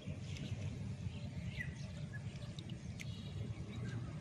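Outdoor ambience: a steady low rumble, a few short bird chirps about a second and a half in, and a single sharp click about three seconds in.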